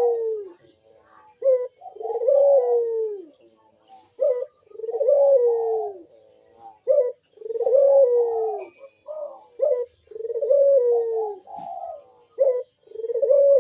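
Puter (Barbary dove) cooing its manggung call: about five repeated phrases, each a short note followed by a longer, deep coo that falls in pitch, coming roughly every two and a half to three seconds.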